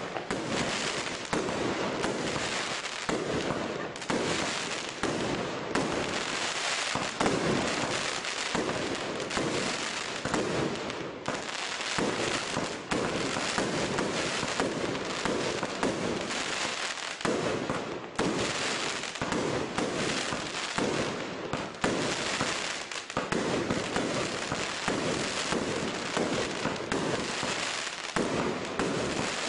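Crackling Color Rain consumer fireworks cake firing shot after shot, its breaks bursting into crackling stars: a dense, unbroken crackle with repeated heavier pops.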